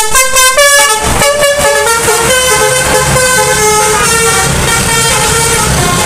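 Telolet bus horn: a passing coach's multi-tone air horn playing a tune, a quick run of short notes for about two seconds, then slower, longer-held notes. Steady traffic noise lies beneath.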